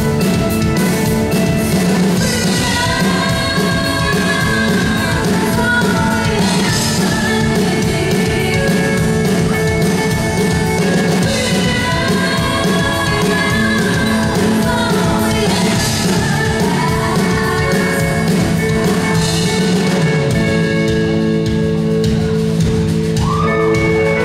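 Live rock band playing: a woman singing over electric guitar, bass guitar and drum kit. Near the end the cymbals fall away, leaving held chords.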